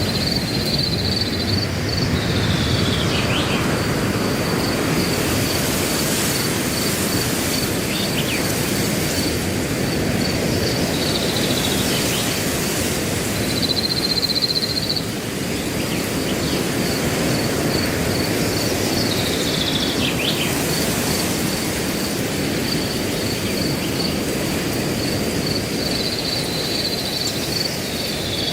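Wind blowing through grass with a constant, rapid, high cricket chirp over it, and a short falling bird call about every eight or nine seconds.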